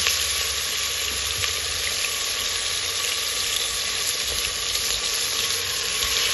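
Oxtail and turkey neck frying in a hot pot with a steady sizzle, the meat being seared to brown it.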